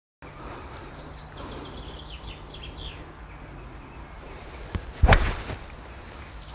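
A golf club strikes a teed-up ball in a tee shot: one sharp, loud crack about five seconds in. Birds chirp faintly beforehand.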